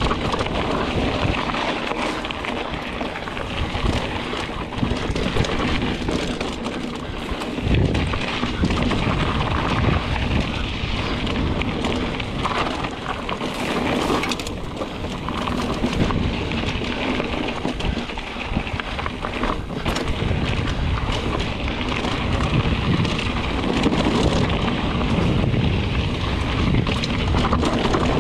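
Mountain bike rolling fast down a dry dirt singletrack: steady tyre noise over dirt and leaf litter, with the bike rattling and knocking over bumps now and then, under heavy wind rush on the microphone.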